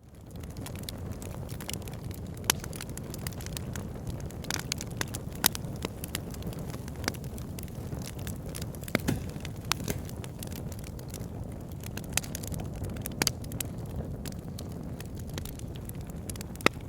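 Fireplace fire crackling: a steady low rumble of flames with sharp pops and snaps scattered irregularly throughout, a few of them louder. It fades in from silence at the very start.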